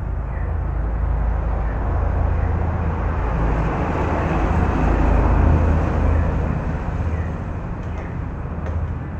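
Honda Beat eSP scooter's single-cylinder engine running under throttle, its sound swelling to a peak about five seconds in and then easing off.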